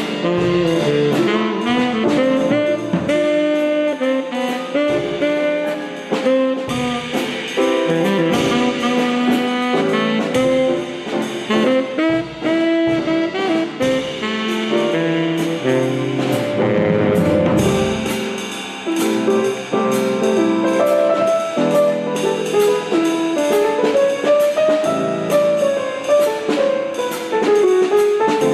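Instrumental band music: horns playing a melody over a drum kit with a steady cymbal beat.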